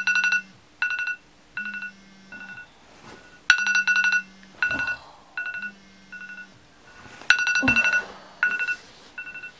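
Smartphone alarm ringtone going off for a morning wake-up: a repeating electronic tune of rapid high beeps over a low note, its phrase starting over about every three and a half seconds.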